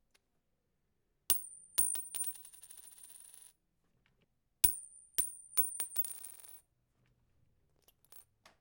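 A coin dropped onto a hard surface twice, the second drop about three seconds after the first. Each time there is a sharp strike, a few quick bounces and a high ringing that fades as the coin rattles and settles.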